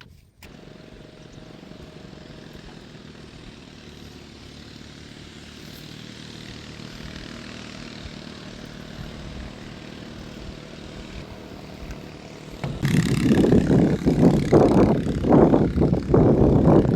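Small boat's engine running steadily and slowly getting louder. About three-quarters of the way in, the sound turns much louder with irregular buffeting of wind on the microphone as the boat gets moving.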